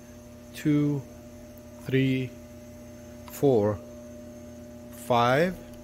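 Cordless drill spinning a Torx T30 bit in four short bursts of about half a second each, backing out the bolts that hold the valve body of a Mercedes 722.9 seven-speed automatic transmission. A faint steady hum underneath.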